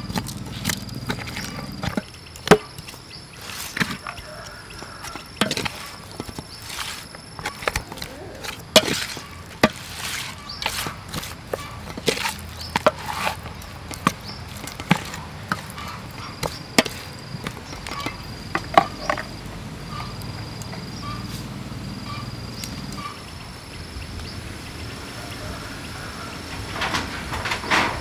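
Wooden spoon knocking and scraping against a metal mixing bowl at irregular intervals while stirring pork ribs in a thick marinade. Insects chirp high and steady in the background.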